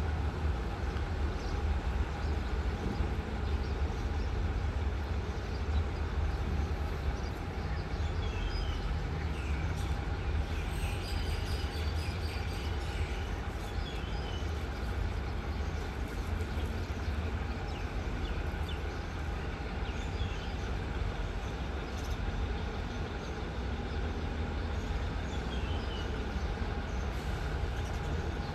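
Diesel-electric locomotive engine running steadily with a deep low rumble and a few steady humming tones above it.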